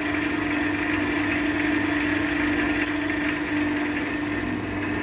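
Wood lathe running at speed with a steady motor hum, spinning a hardwood gear-knob blank.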